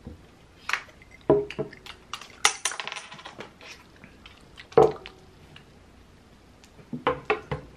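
Scattered clinks and knocks of glasses of iced coffee with ice and metal forks on a table. One clink about two and a half seconds in rings on briefly, and a sharper knock comes near five seconds.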